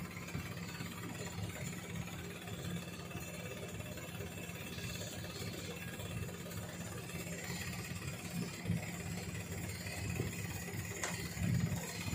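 A small engine running steadily at idle, a constant low hum.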